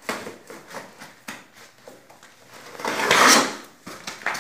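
Knife slitting the packing tape along a cardboard box: a few short scrapes and taps, then a longer, louder scrape about three seconds in.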